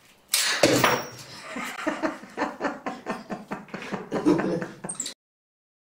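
Rapid rhythmic vocal bursts, about three a second, starting loudly and cutting off abruptly about five seconds in.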